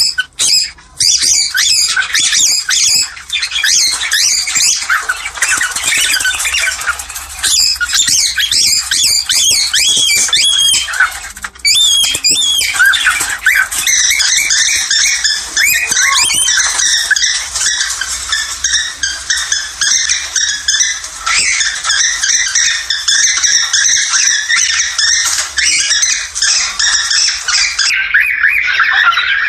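Cockatiels in breeding condition chattering without a break, a dense overlapping mix of chirps, whistles and squawks: a recording of cockatiel mating calls.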